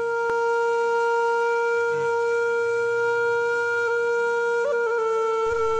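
Background music: a single long, steady note held on a wind instrument, with a brief wobble in pitch near the end.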